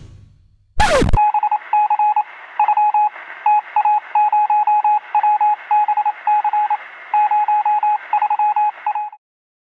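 Morse code beeping: a single-pitch tone keyed on and off in irregular short and long pulses over radio-like static hiss, cutting off suddenly near the end. It is preceded about a second in by a brief swoop that falls in pitch.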